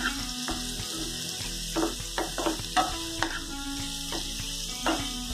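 Chopped cauliflower, capsicum and carrot sizzling in hot oil in a frying pan, stirred with a wooden spatula that repeatedly scrapes and taps the pan.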